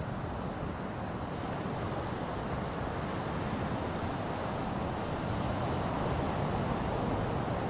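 Ocean surf: a steady rush of breaking and washing waves that swells slightly in the later part.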